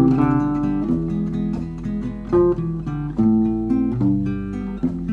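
Acoustic guitar fingerpicked, a slow run of plucked chords and single notes ringing into one another, with no voice.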